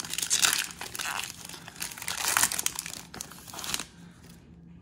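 Foil wrapper of a trading card pack being torn open and crinkled in the hands, a run of crackly rustles that dies down about four seconds in.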